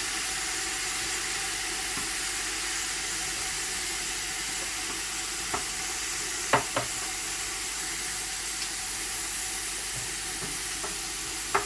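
Chicken pieces sizzling skin-down in a large pot as their fat renders out, a steady hiss. A few sharp knocks cut through it around the middle and once near the end.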